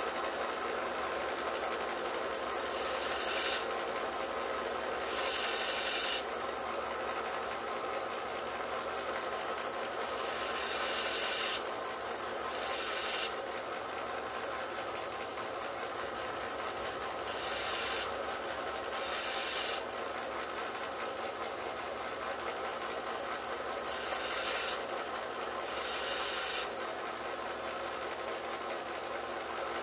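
Small 3-inch handheld grinder with a fiber abrasive wheel running steadily. Short hissing scrubs about a second long, mostly in pairs, come as the wheel is worked against the steel blade of a Case XX lock-blade knife to buff out scratches.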